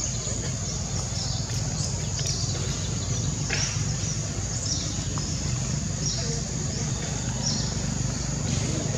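Outdoor ambience: a steady low rumble and a steady high hiss, with short high animal chirps every second or so.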